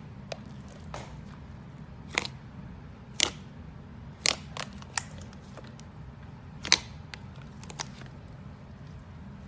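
Slime being squished and poked by hand, giving sharp irregular clicks and pops, about a dozen, over a low steady hum.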